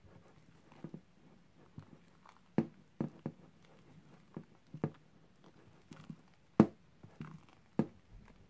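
Silicone spatula folding whipped cream in a metal bowl: irregular clicks and knocks as the spatula strikes and scrapes the bowl, the loudest about two-thirds of the way in.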